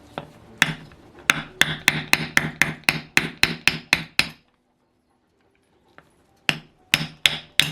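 Hammer tapping on a wood block to drive the crankshaft out of a heated OS FS-20 crankcase. There is a quick run of about fourteen sharp taps, a pause, then a few more taps near the end.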